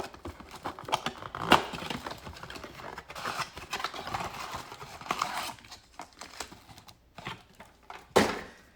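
Trading card pack being handled and opened: a wrapper crinkling and tearing amid irregular rustling, with sharp taps or clicks, the loudest about a second and a half in and again near the end.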